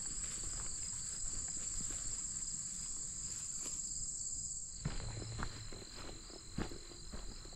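A chorus of insects trilling steadily outdoors: one high continuous drone with a lower pulsing trill beneath it. About five seconds in a few soft footsteps or knocks come through.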